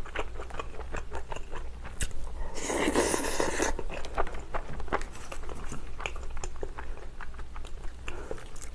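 Close-miked chewing and wet mouth clicks of a person eating soft potato and pork from kimchi jjigae, with a louder noisy sound lasting about a second, about three seconds in.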